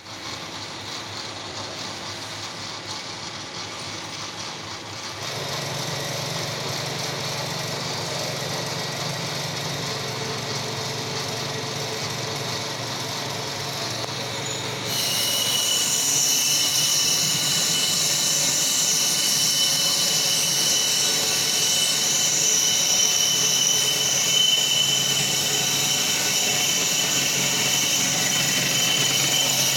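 Metal lathe running with a steady mechanical drone, getting louder about five seconds in and again about fifteen seconds in, when a steady high-pitched whine and hiss come in.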